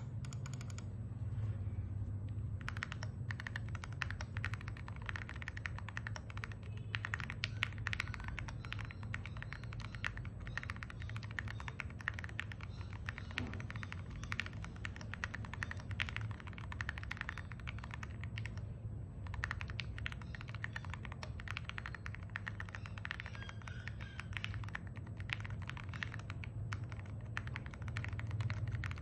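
Mechanical keyboard with prelubed EG Aqua King V3 linear switches being typed on quickly and continuously: a dense run of keystrokes, slightly deep, poppy and creamy, with a brief pause about two-thirds through. A steady low hum sits underneath.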